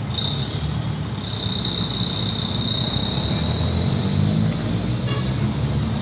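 Heavy truck hauling an excavator on a low-bed trailer, its engine running low under slow traffic with motorcycles passing. A steady high whine sounds over it, rising slowly in pitch.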